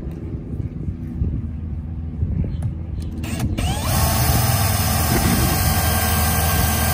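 Cordless drill spinning up about halfway through, then running at steady speed as it bores a screw hole into a fiberglass boat gunwale. Before it starts there is only a low rumble.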